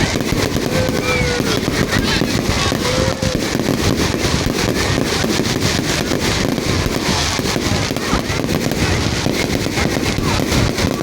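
Fireworks display going off in a dense, unbroken run of crackles and bangs.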